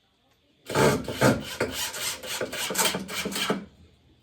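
Wood scraping or rasping in quick back-and-forth strokes, about three a second. It starts about a second in and stops shortly before the end.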